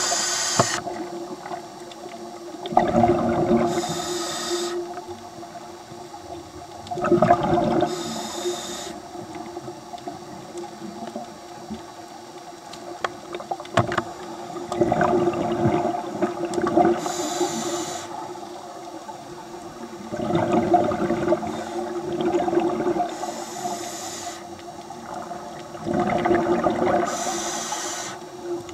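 Scuba diver breathing through a regulator underwater: a short hissing inhale followed by a louder, lower bubbling exhale, the cycle repeating every four to six seconds.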